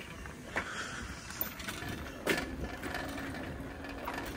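A bicycle ridden along a road: steady tyre and road noise with the bike rattling, and a few sharp knocks, the loudest a little after the halfway point.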